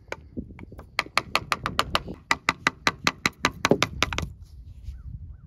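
A screwdriver blade jabbed again and again against the old corroded cutlass bearing inside the shaft log, making a quick even run of sharp taps, about six a second, starting about a second in and stopping after about three seconds.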